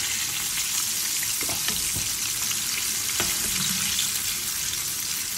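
Crumb-coated boneless chicken pieces deep-frying in hot oil in a kadai: a steady sizzle, as a perforated steel skimmer stirs through the oil.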